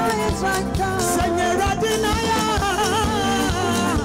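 Music: a voice singing a melody over a band with a steady beat.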